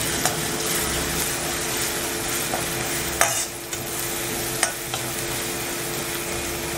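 Onions with ginger-garlic paste and turmeric sizzling in hot oil in an iron kadai while a perforated metal ladle stirs them, scraping and knocking against the pan a few times.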